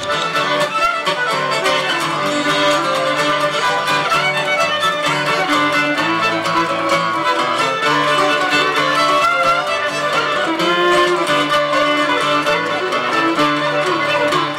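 Fiddle playing a tune over acoustic guitar accompaniment.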